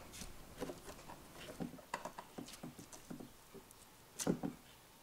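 Scattered light clicks and taps of an OO gauge model railway point being handled and seated on the baseboard, with a couple of louder taps about four seconds in.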